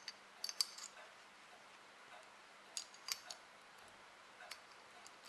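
Light metallic clicks of small steel revolver parts as the hammer is fitted into the frame of a Colt 1860 Army replica: a few faint clicks in clusters, about half a second in and again around three seconds.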